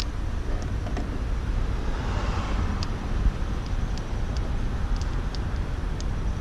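Steady low outdoor rumble on the microphone, with a few faint light clicks as the headlight bulb and its plastic connector are handled.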